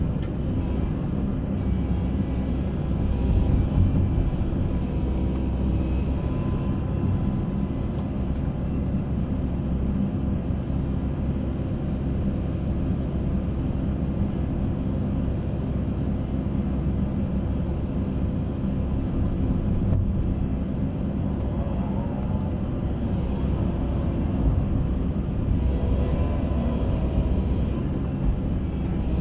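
Concrete mixer running: a steady, continuous low engine rumble.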